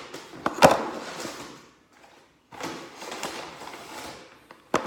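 Rustling and crinkling of a plastic shopping bag and packaged squid jigs being handled, with a sharp click under a second in and a short quiet gap near the middle.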